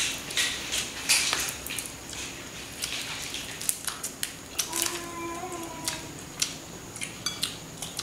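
Scattered clicks and light clatter of people eating roasted egret by hand from plates, fingers and small bones knocking against the plates as meat is torn off. A short pitched sound lasting about a second comes about five seconds in.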